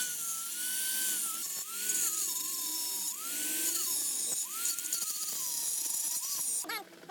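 Electric grinder whining as it grinds scrap metal, its pitch sagging and recovering several times as it is pressed into the work. It stops near the end.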